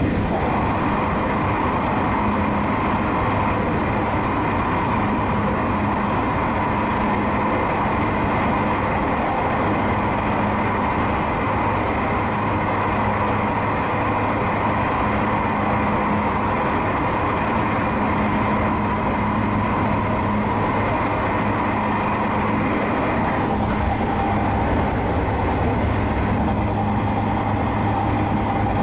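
JR West 221 series electric train running at speed, heard from behind the driver's cab: a steady rumble of wheels on rail with a constant hum. The running noise changes character about 23 seconds in.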